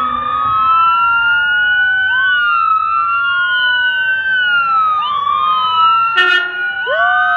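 Ambulance sirens wailing in overlapping slow rising and falling sweeps as the ambulance approaches, with a short horn blast about six seconds in.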